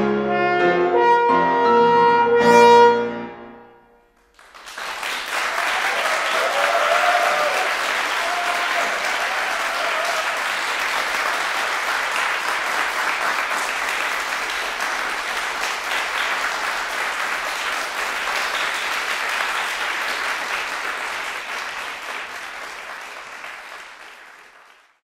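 Trombone and grand piano playing the closing notes of a trombone sonata, ending about three seconds in with the sound dying away in the hall. After a brief hush, an audience applauds steadily for about twenty seconds, fading out near the end.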